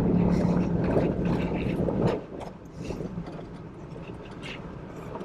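Toyota Tacoma pickup driving on a dirt road, a steady engine hum with a noisy rumble and rattles; about two seconds in the hum drops away sharply as the truck eases off, leaving quieter scattered rattling and clicks.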